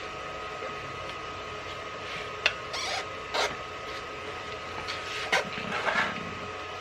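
Steel tire lever working a tight tire bead over a motorcycle wheel rim: scattered scrapes and rubbing, with a couple of sharp clicks, over a faint steady high hum.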